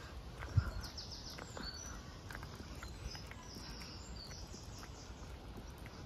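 Small songbirds singing in the hedgerow, with quick high trills and short whistled notes, over a faint outdoor hush and light footsteps on a tarmac path. A single soft low thump comes about half a second in.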